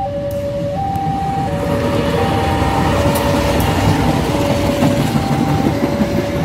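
A locomotive-hauled passenger train passing close by, its wheels rumbling and clacking over the rails, growing louder about two seconds in. Throughout, a level crossing's electronic warning alarm alternates steadily between a high and a low tone.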